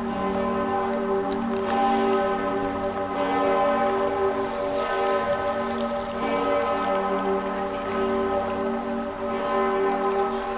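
Pretiosa, the great bronze bell of Cologne Cathedral, swinging and ringing, with a fresh stroke about every one and a half seconds and its deep hum ringing on between strokes.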